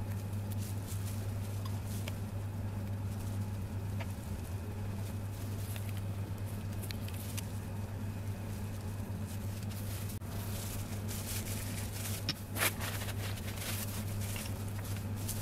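Rustling and crinkling of loose plastic food-prep gloves and light handling sounds as a tube of spread is squeezed onto bread strips, with scattered faint clicks and a louder crackle about three-quarters of the way through. A steady low hum underlies it all.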